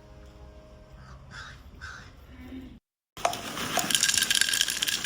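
Birds cawing: two short caws about one and a half seconds in, then after a brief cut a louder, harsher stretch with more caws.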